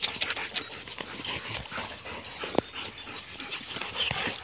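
Dogs close to the microphone, breathing and sniffing as they nose around, with scattered small clicks and one sharper click about two and a half seconds in.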